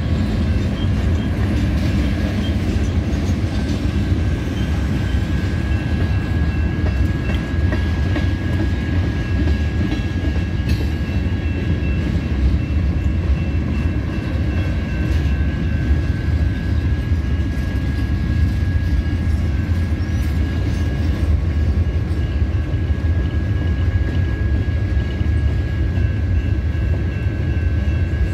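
Freight train cars rolling past close by: a continuous low rumble of steel wheels on rail. A thin, steady high-pitched tone runs over the rumble.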